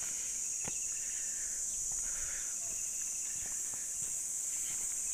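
Steady high-pitched chorus of insects buzzing in the surrounding vegetation, with a few faint footsteps on stone.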